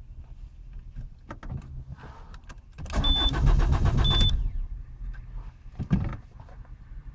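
Citroen C3 starter motor cranking the engine for about a second and a half with an even, rapid chug, without the engine catching. The car won't start because the +12V power feed to the engine control unit is broken. Short electronic beeps mark the start and end of the cranking, with key clicks before it and a single knock afterwards.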